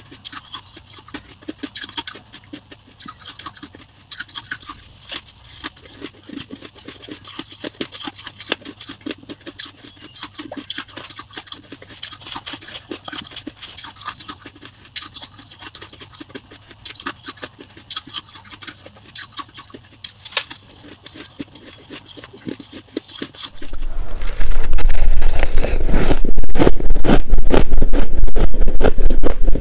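Close-miked crunching and chewing of soft frost ice, a dense run of small crisp crunches. About 24 s in it jumps to much louder, harsher crunching with a low hum underneath.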